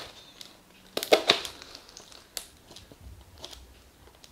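Taped cardboard mailer being worked open by hand: a few separate crinkling, scraping sounds of cardboard and packing tape, spread across a few seconds.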